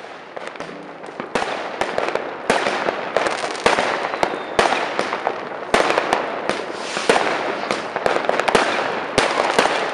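Fireworks going off: a dense, continuous crackle of firecrackers, punctuated by sharper bangs about once a second, building up over the first second or so.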